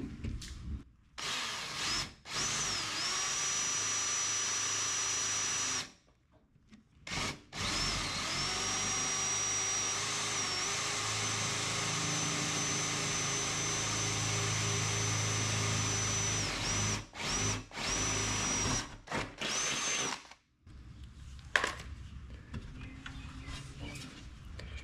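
Power drill boring a mounting hole into the steel door of a Jeep Cherokee XJ, run in bursts: two short runs, then one of about nine seconds, then a few quick blips of the trigger. Its whine climbs to a steady pitch each time the motor spins up.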